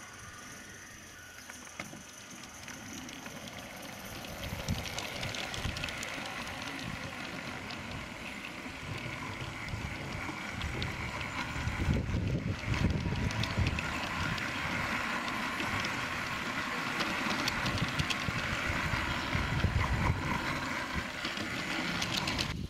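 Close-up running rattle of a 16mm-scale garden railway train, heard from on board: a steady clatter of small clicks and a low rumble from the wheels on the track, growing louder a few seconds in.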